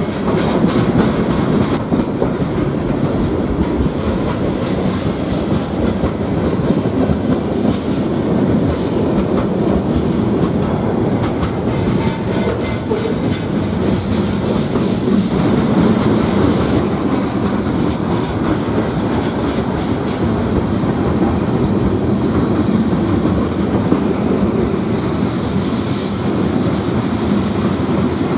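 BNSF freight train's cars (boxcars, wrapped-lumber flatcars, covered hoppers) rolling past close by: loud, steady rumble of steel wheels on rail with a constant stream of clicks from the wheels.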